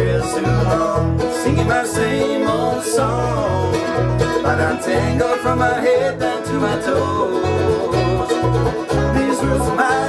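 Bluegrass band playing live: banjo, mandolin, guitar and a steady bass line, with two men's voices singing along at times.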